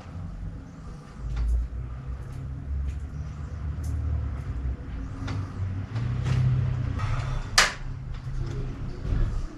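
Clicks and knocks of a bicycle being handled and repositioned in a workshop repair stand, with one sharp, loud click about seven and a half seconds in, over a steady low rumble.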